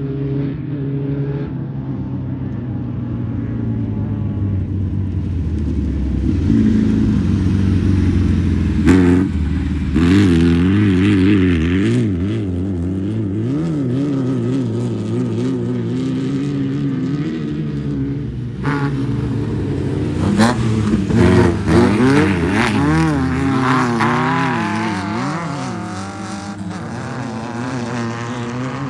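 Class 11 off-road race car (a stock Volkswagen Beetle with an air-cooled flat-four) running hard, its engine pitch rising and falling unevenly as it revs over rough ground. It grows louder twice, and a few sharp knocks come through, the loudest about nine seconds in.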